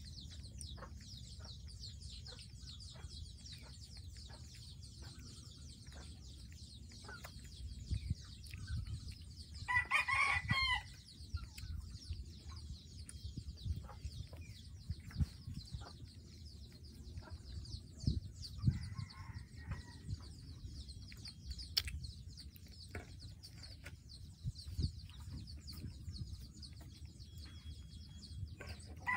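A rooster crows once, loudly, about ten seconds in, with a fainter call near twenty seconds, over a steady high hiss and occasional low thumps.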